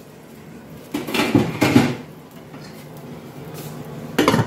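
Cookware clattering about a second in, then a glass pot lid set down on a stainless steel pot with a sharp clink near the end.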